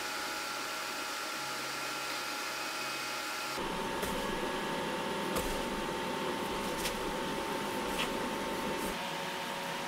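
A steady machine hum and whir, with a sudden change in its tone about a third of the way in and a few faint ticks after that.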